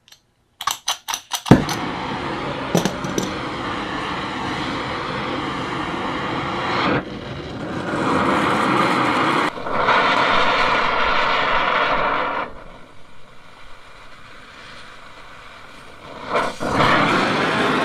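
Oxy-acetylene torch: a few quick clicks, then a sharp pop as it lights, followed by the flame's steady hiss. The hiss steps louder and softer several times, dropping for a few seconds near the end before rising again.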